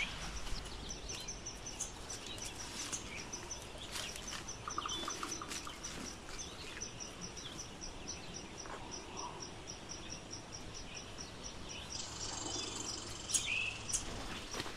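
Woodland birds and insects calling: a high chirp repeats about three times a second through most of the stretch, with a few bird notes near the end, over scattered crunching footsteps on the trail.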